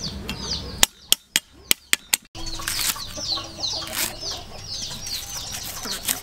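A cleaver chopping lemongrass stalks on a wooden chopping board: a quick run of about six sharp knocks about a second in, then a few more chops. Chickens peep and cluck in the background throughout.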